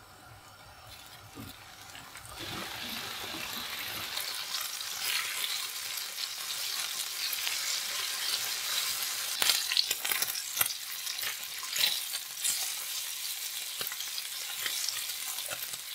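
Bacon rashers sizzling in oil in a non-stick frying pan, the hiss building over the first few seconds and then holding steady. In the second half a spatula turns the rashers, with sharp taps and scrapes against the pan.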